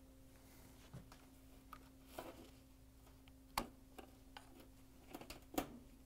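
Faint, scattered plastic clicks and knocks of a washer's water level pressure switch being unclipped from the console and its wiring harness unplugged, with the sharpest clicks about three and a half and five and a half seconds in.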